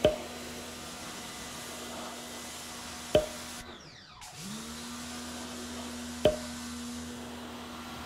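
Electric pump of a portable tank-fed spray washer running steadily as water is sprayed onto an air conditioner's cooling fins; about four seconds in it briefly drops out and spins back up to speed. Three sharp clicks about three seconds apart.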